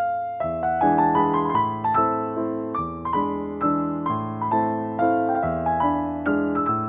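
Background piano music: a gentle melody of single struck notes, several a second, each fading away.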